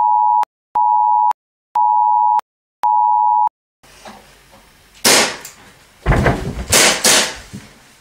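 Test-card beep: a steady high tone sounding about once a second, four times, stopping about three and a half seconds in. Then, about five seconds in and again between six and seven seconds, loud sharp bangs of a toy pistol being fired, the loudest sounds here.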